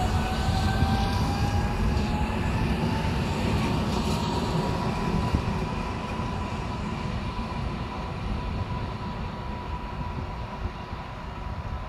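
EN57AKM electric multiple unit accelerating away, its traction motors whining up in pitch and then holding steady, over a low rumble of wheels on rails that fades as the train moves off.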